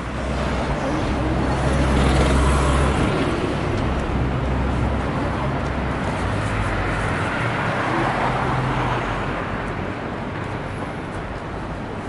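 Road traffic with engine hum and tyre noise as vehicles pass close by. It is loudest about two seconds in, with a smaller swell around eight seconds.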